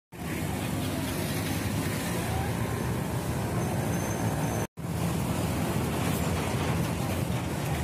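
Roadside traffic noise with motor scooters and cars passing close by, steady, broken by a brief dropout to silence a little under five seconds in.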